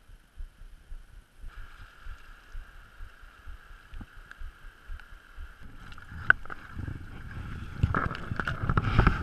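Wind buffeting the microphone, then water splashing from about six seconds in, growing louder near the end, as a hooked rainbow trout is landed and handled in the shallows.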